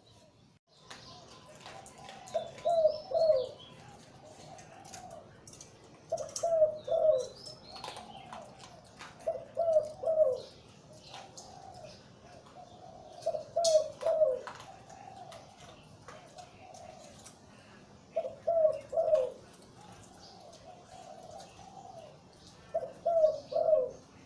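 Male zebra dove cooing in the Thai 'liu tan' competition style, with a big, deep voice: six phrases about four seconds apart, each a quick run of loud notes followed by softer trailing coos. Small birds chirp faintly in the background.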